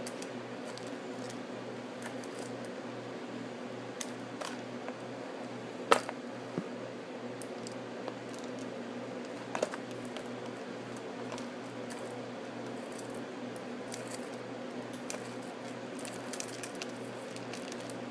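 Steady low machine hum with a regular pulse, about two or three a second, with a few scattered clicks and taps, the loudest about six seconds in.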